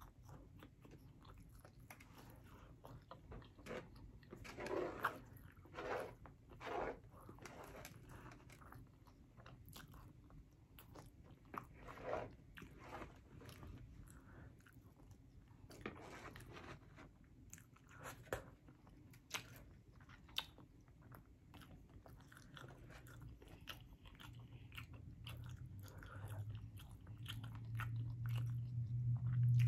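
Close-miked chewing and biting of food, steak and mashed potatoes with gravy, with a fork and spoon clicking and scraping on a foam plate. A low hum builds up near the end.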